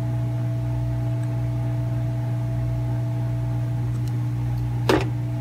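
A steady electrical hum from bench equipment, low and even, with a few fainter steady tones above it. About five seconds in comes a single short knock as a laptop logic board is set down on the bench mat.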